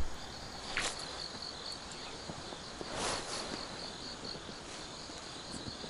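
Insects chirping in a fast, even pulsing trill. A short rush of noise comes about three seconds in.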